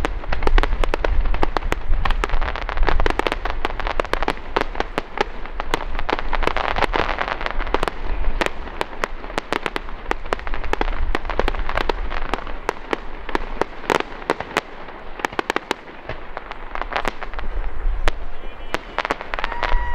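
Aerial fireworks display: shells bursting in quick succession, with dense crackling and popping over deep booms. The bursts thin out briefly about three-quarters of the way through, then pick up again.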